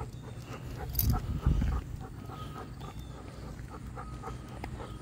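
An Airedale terrier breathing and sniffing on a leash walk, with a short louder rush of low noise about a second in.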